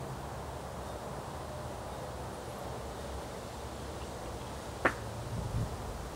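Two 24 kg kettlebells give a single sharp metallic clink about five seconds in as they are driven from the rack into a jerk. Under it runs a steady low rumble of wind on the microphone, picking up in gusts near the end.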